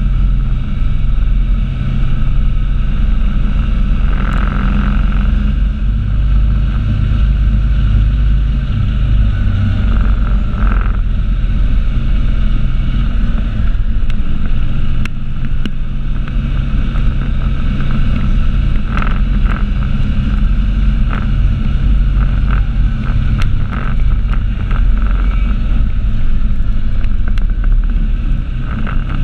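Off-road vehicle engine running steadily under way on a trail ride, its pitch shifting a little, with wind buffeting the microphone and scattered rattles and clicks.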